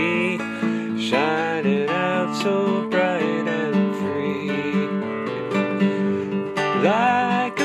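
A song: strummed acoustic guitar, with a voice singing phrases over it.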